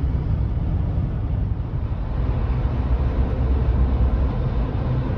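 Vehicle driving: a steady low road and engine rumble, with a faint steady hum joining about halfway through.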